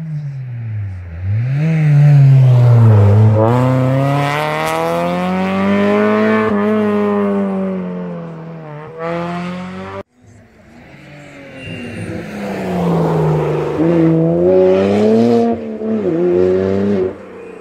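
Historic rally cars coming through a special stage at full speed: the engine revs hard, its pitch climbing and dropping back at each gear change, then falling away. The sound cuts off abruptly about ten seconds in, and another car comes through the same way.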